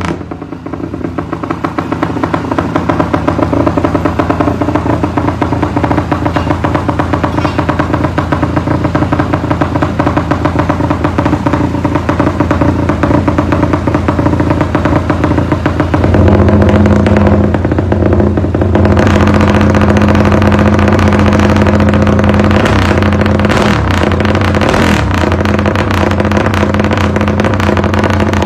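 Yamaha Y15ZR (MX King) 150 cc single-cylinder four-stroke running through an aftermarket exhaust, set for a rumble idle ('timing kuda'). About two-thirds of the way through, the engine note steps up, gets louder and holds there.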